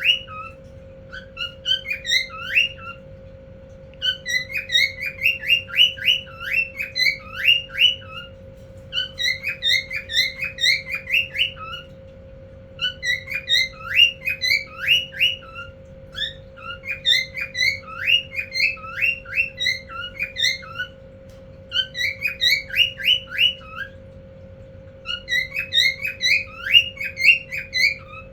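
Male cockatiel calling to a female: repeated bouts of quick, rising and falling whistled notes, each lasting a few seconds with short pauses between, over a steady low hum.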